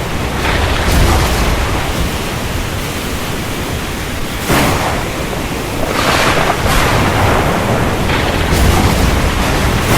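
Heavy rain as a dense, steady rushing hiss that swells and eases every few seconds, with a sudden louder surge about four and a half seconds in and a low rumble near the start and again near the end.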